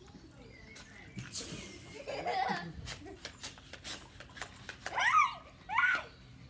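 A girl laughing and squealing, with two loud high shrieks near the end, amid the hiss of water squirting from pump-action water guns.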